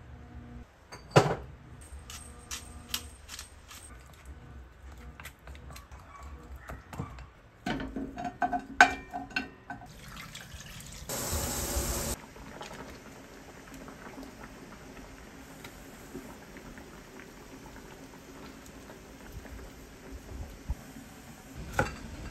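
Kitchen sounds: a metal spoon clinking and scraping in a glass measuring cup as seasonings are mixed, a short rush of water about eleven seconds in, then a pot of water at a rolling boil bubbling steadily. A knife knocks on a wooden cutting board near the end.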